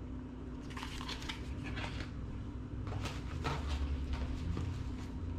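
Cosmetic packaging being handled, with scattered rustles and light clicks, over a steady low hum.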